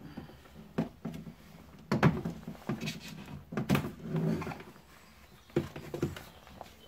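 Plastic door card of a Ford Mondeo MK3 front door being handled and lifted away from the door: irregular knocks and scrapes, loudest about two and three and a half seconds in, with another about five and a half seconds in.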